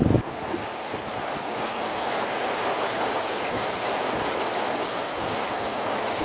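Steady rush of water churned up alongside a moving boat's hull, an even hiss with no clear engine tone. A brief buffet of wind on the microphone right at the start.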